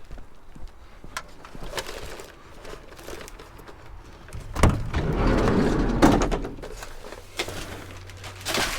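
Scrap being handled and moved: scattered clicks and knocks, then a loud knock about halfway through followed by over a second of clattering, and another sharp knock near the end.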